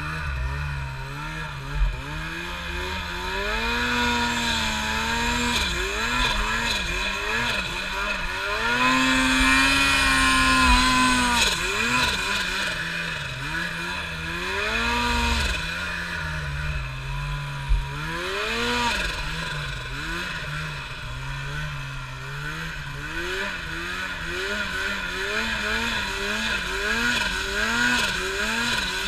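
Snowmobile engine revving up and down under load as the sled is ridden through deep powder. The revs are held high for a couple of seconds about nine seconds in, and there are quick repeated throttle blips in the last few seconds. Two sharp knocks stand out, one near the start and one a little past halfway.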